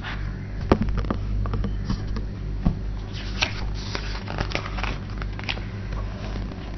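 A picture book being opened and its paper pages handled: irregular rustles and light clicks, most of them in the first five seconds, over a steady low hum.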